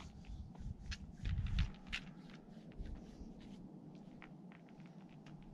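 Faint scuffs, taps and scrapes of a climber's hands and shoes on granite as he settles onto the start holds of a boulder problem. A brief low rumble about a second and a half in is the loudest sound.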